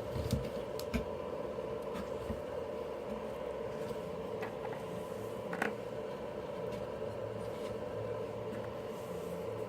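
A few light clicks and taps from handling small parts and tools on a workbench, over a steady background hum.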